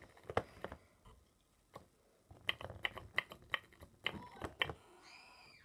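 Irregular sharp plastic clicks and taps as the pieces and the motor-spun toy of a snap-together electronics kit are handled, in two busy runs with a near-quiet gap between them. A short high squeak rises and falls near the end.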